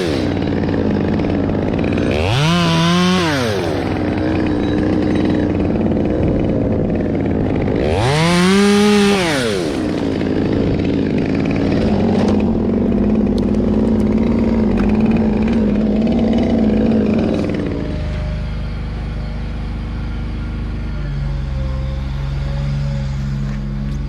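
Two-stroke chainsaw coming down from a rev at the start, then revved up and back down twice, running at a lower speed in between. A steadier, even engine hum takes over for the last several seconds.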